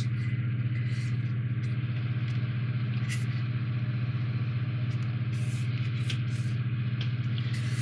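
A steady, low-pitched machine hum, like a small motor or fan running, with a few faint rustles and clicks as the plastic model hull is handled.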